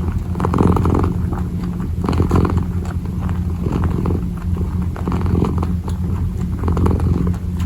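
Kitten purring close to the microphone: a steady low rumble that swells and eases with each breath, a little more than once a second.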